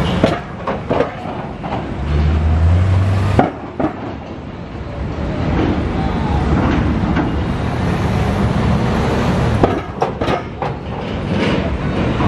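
Steel linkspan and ramp plates clanking and banging under the wheels of cars driving onto a ferry. There are a few clanks at the start, one about three seconds in and a cluster about ten seconds in, over a passing car's low engine rumble.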